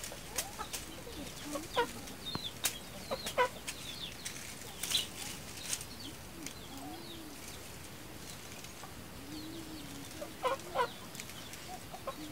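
Chickens clucking, with low drawn-out clucks and a few short higher calls, over several sharp knocks.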